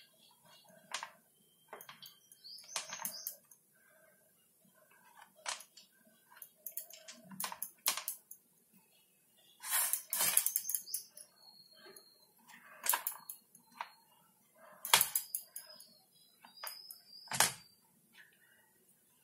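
A knife scoring a tin of crumbly, porous Mysore pak into pieces: short gritty scrapes through the sweet and sharp clicks of the blade against the metal tin, every second or two.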